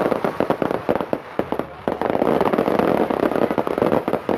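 Daylight fireworks going off in a dense, continuous barrage of rapid cracks and pops, easing briefly about halfway through before building again.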